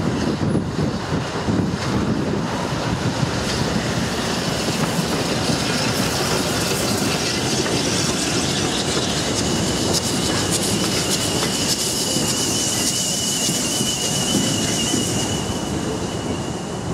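Bagnall 0-4-0 saddle tank steam locomotives hauling a passenger train past, with the steady running noise of the locos and wagons on the rails. About halfway through a thin, steady high-pitched wheel squeal comes in, with a loud steam hiss over it as the engine passes close by, both fading near the end.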